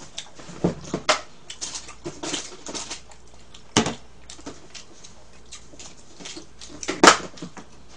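Close-miked eating and table noises: chewing and smacking with scattered clicks and light knocks of chopsticks and dishes, and a louder sharp crack about seven seconds in as a cola can is handled.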